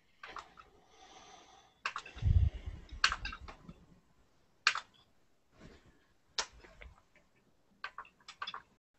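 Scattered sharp clicks at a computer, spaced irregularly a second or so apart. A dull thump about two seconds in is the loudest sound.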